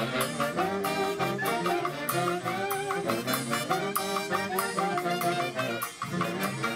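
Live festival dance orquesta playing, with horns carrying a melody over a steady beat.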